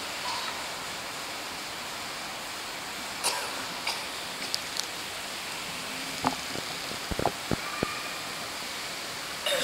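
Steady hiss of room tone through the microphone, with a few light clicks about three to five seconds in and several soft knocks around six to eight seconds in.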